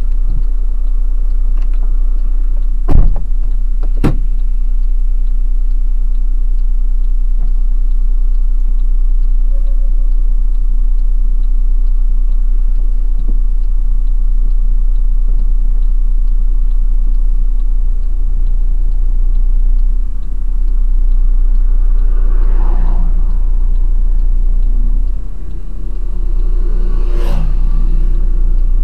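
Deep, steady rumble of a truck's engine and road noise inside the cab while driving slowly. Two sharp knocks come about a second apart near the start.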